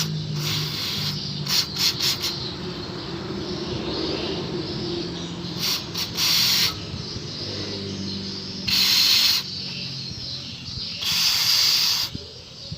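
Aerosol carb and injector cleaner sprayed in a series of hissing bursts, a few quick short ones then several lasting about a second, to clean parts. A low steady hum runs underneath.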